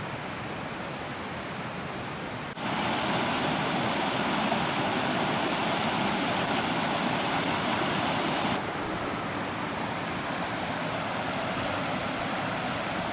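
Steady rush of stream water and waterfalls. It jumps abruptly louder and brighter about two and a half seconds in, then drops back to a softer rush about six seconds later.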